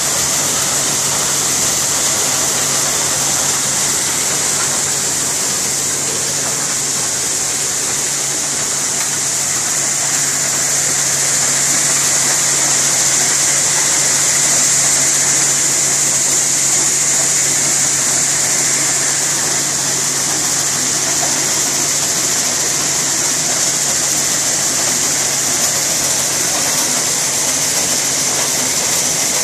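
Soybean seed-sorting machine running steadily: an even hiss of soybeans pouring and rattling through its chutes and sieves over a low motor hum.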